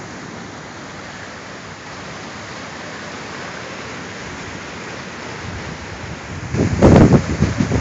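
Swollen, muddy river rushing steadily over rapids. About six and a half seconds in, loud low rumbling buffets hit the microphone for about a second.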